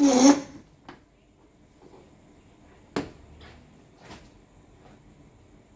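Metal parts and tools being handled on a workbench: a loud clatter at the start, then a few separate knocks and clinks.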